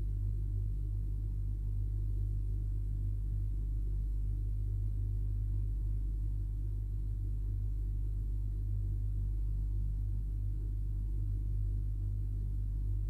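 A steady low hum that does not change, with a fainter rough murmur just above it.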